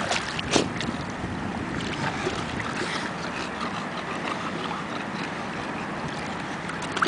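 Shallow seawater splashing and sloshing as a dog's paws step through it, over a steady rush of wind and water, with one sharper splash about half a second in.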